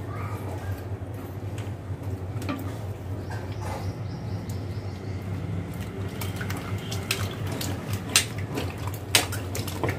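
Water splashing in a steel bowl as peeled bitter gourd pieces are dropped in and rubbed clean by hand, with sharper splashes and knocks against the bowl in the last few seconds. A steady low hum runs underneath.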